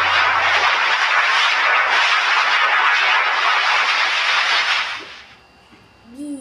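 Loud, steady rushing noise from an edited, heavily distorted sound effect, fading out about five seconds in. After a short lull, a brief rising-and-falling tone sounds near the end.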